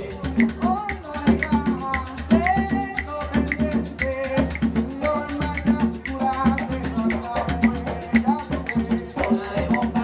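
Live Puerto Rican bomba music: hand drums (barrel drums and congas) playing a steady rhythm with maracas shaking and voices singing over it.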